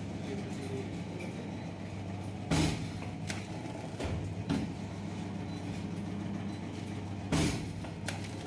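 Automatic vertical pouch packing machine running with a steady low hum. Two louder sharp strokes come about five seconds apart, with a few lighter knocks of its mechanism between them.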